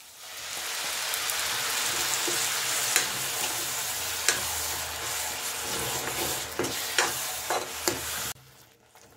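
Fresh tomato paste sizzling as it hits hot oil and fried onions in a steel kadhai, while a metal ladle stirs it and clicks against the pan a few times. The sizzle stops suddenly near the end.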